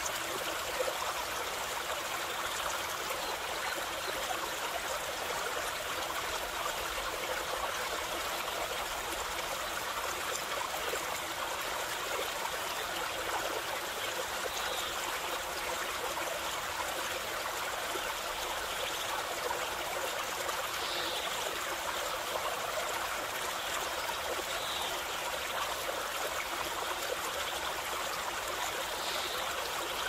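Stream babbling and rushing steadily over stones, with a few faint, short bird calls high above it in the second half.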